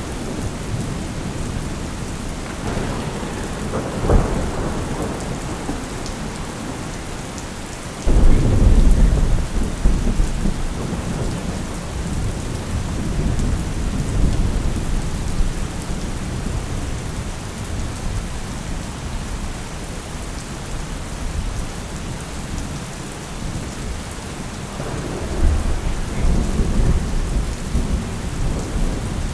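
Steady rain falling, with thunder: a sharp crack about four seconds in, a sudden loud low rumble about eight seconds in that rolls on for several seconds, and another rumble near the end.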